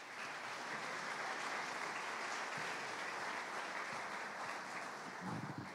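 A large audience applauding, with steady clapping that fades away near the end.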